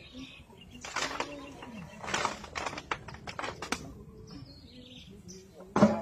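Workers' poles thudding into the ground by hand in manual pile driving: a handful of irregular thuds, the loudest near the end, with a few voices calling between them.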